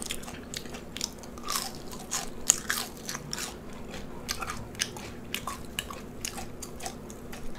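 A person chewing food close to the microphone: a run of irregular, crisp crunches and mouth clicks.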